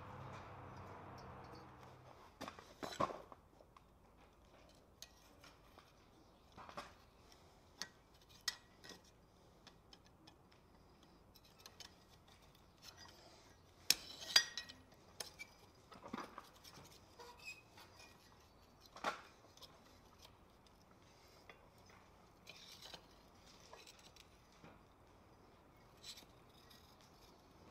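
Scattered light metallic clinks and taps of steel tongs and forged scrollwork against the anvil and its fittings, with sharper clanks about three and fourteen seconds in. A low hum stops about two seconds in.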